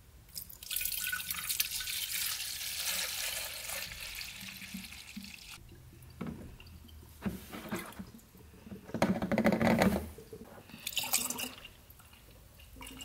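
Coolant poured from a plastic jug into a car's plastic coolant expansion tank while refilling the cooling system after a radiator replacement. A steady pour lasts about five seconds, then the sound comes in separate short bursts as the stream thins.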